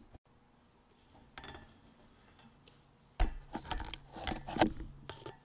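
Several sharp metallic clinks and knocks of things being handled on a steel welding table, bunched between about three and five seconds in, with a faint low hum beneath them.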